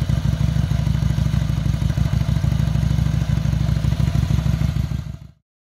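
Victoria V35 Bergmaster's 350 cc overhead-valve 64-degree V-twin engine idling with an even, rapid exhaust beat. It fades out about five seconds in.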